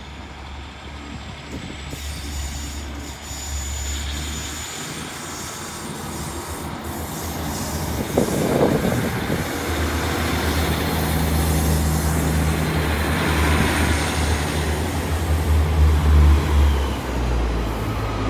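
Diesel multiple units, Class 150 Sprinter and Class 143 Pacer sets, moving through the station with their underfloor diesel engines droning and wheels running on the rails. The sound grows louder as two trains pass close by on either side. There is a short louder sound about eight seconds in.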